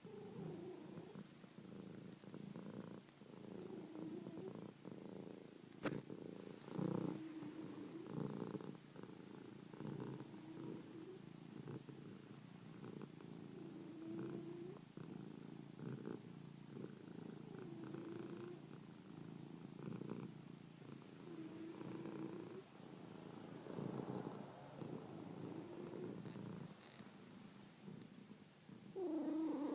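Domestic cat purring, swelling and fading breath by breath in slow cycles every few seconds. There is a sharp click about six seconds in and a louder burst near the end.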